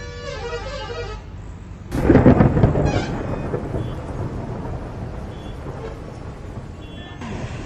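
Thunderclap about two seconds in: a sudden loud crack that trails off into a long fading rumble, over the steady hiss of rain. Before it there is a moment of street noise with a short horn-like tone.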